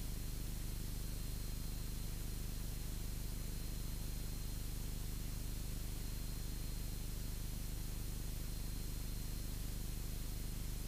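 Cessna 172's engine and propeller running at steady power in flight, a low even drone under a steady static hiss.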